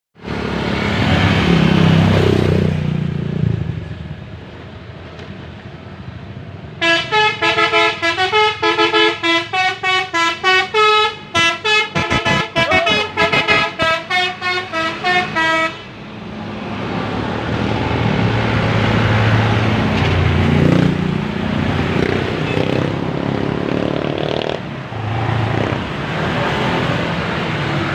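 Bus telolet (basuri) horn playing a rapid tune of short pitched toots for about nine seconds, starting about seven seconds in. A passing bus's engine runs before and after it.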